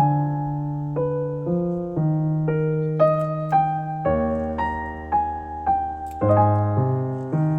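Background piano music: gentle notes struck about twice a second over sustained low bass notes.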